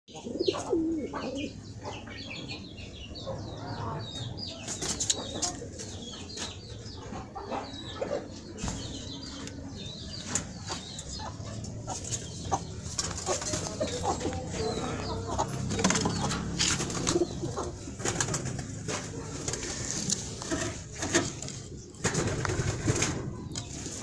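Doves cooing inside a wooden coop, with scattered knocks and flutters against the wood and a few high chirps in the first few seconds.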